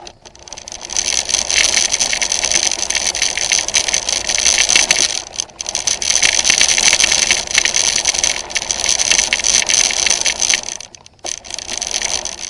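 Battery-powered RC car running: a high, steady whine from its electric motor and gears over a rattling, clattering chassis. It cuts out briefly about five seconds in, stops near the end, then starts again for a moment.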